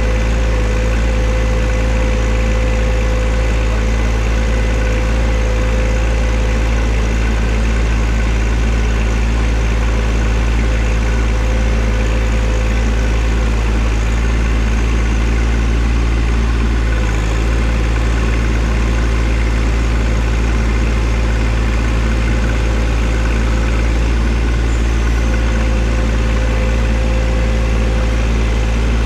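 John Deere 1025R compact tractor's three-cylinder diesel engine running steadily at an even speed, a loud, constant low hum.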